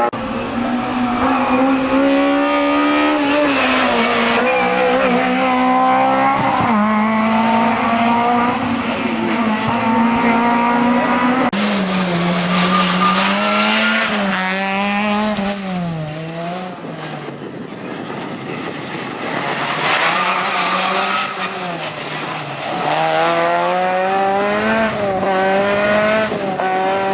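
Historic rally car engine at full throttle on a stage, its pitch climbing and dropping again and again as it runs through the gears. The engine eases off and gets quieter for a couple of seconds past the middle, then climbs hard again.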